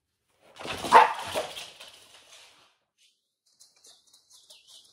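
A Pembroke Welsh Corgi barks about a second in as her toy is thrown. Near the end come faint, quick clicks, her claws on the hardwood floor as she trots back with the toy.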